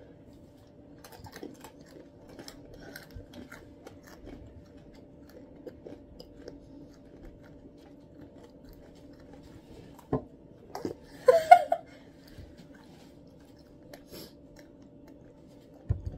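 Two people chewing and crunching roasted peanuts, faint and close; a short louder sound with a wavering pitch cuts in about eleven seconds in.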